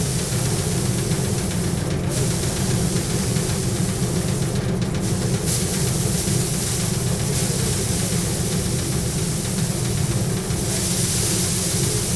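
Paddy threshing machine running steadily as bundles of rice straw are held against its spinning drum to strip the grain. A low hum carries through, with a rushing hiss of grain and straw on top that swells at times.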